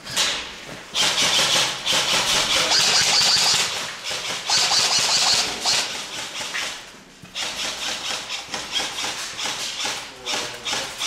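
Airsoft rifles firing full-auto: long rapid rattling bursts of shots with a clear break about seven seconds in.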